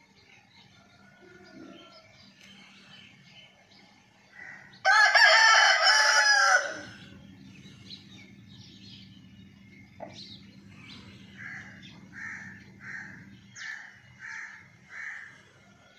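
Rooster crowing once, a loud crow of about two seconds starting about five seconds in. Near the end comes a run of six short, evenly spaced clucks.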